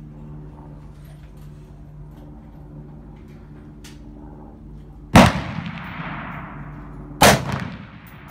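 Two AR-15 rifle shots about two seconds apart, each sharp crack followed by a long fading echo.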